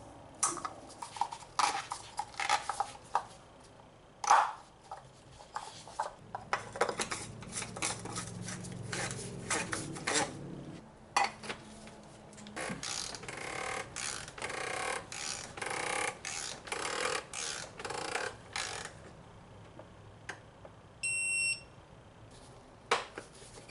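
Irregular clicks, taps and scraping, with a low hum for several seconds in the middle and a single short electronic beep near the end.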